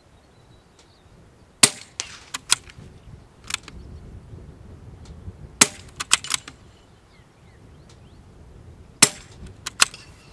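Three rifle shots about four seconds apart, each sharp crack followed within a second by a few quick clicks of the bolt being worked to chamber the next round.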